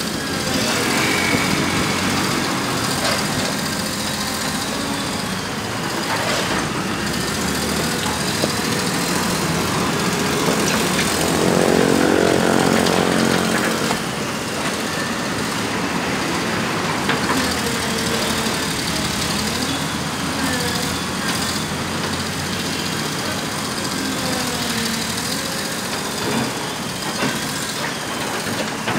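Komatsu PC200 hydraulic excavator's diesel engine running as it digs, its note rising and growing louder under load for a few seconds near the middle, with a few light knocks from the bucket working the ground.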